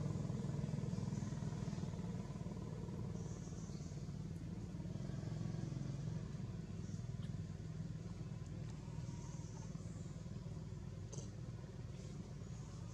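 Steady low droning hum, like a motor running in the background, slowly easing off a little, with a few faint high ticks.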